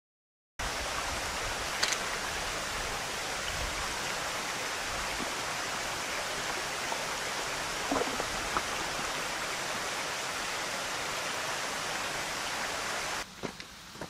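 Rushing water of a shallow rocky stream: a steady, even hiss that starts abruptly about half a second in, with a couple of faint knocks. It drops away sharply about a second before the end.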